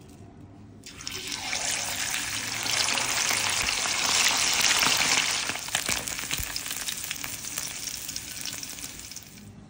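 Whole turmeric-coated fish frying in hot oil: a dense sizzle with fine crackling pops that sets in about a second in, is loudest in the middle, and dies down near the end.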